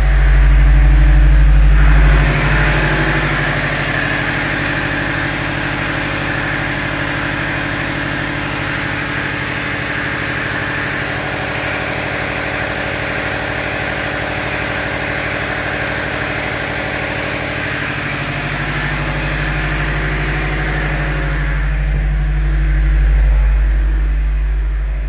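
Standby generator set's engine running loudly and steadily with no load: its built-in cool-down run, which keeps it going a few minutes after the load has gone back to the mains.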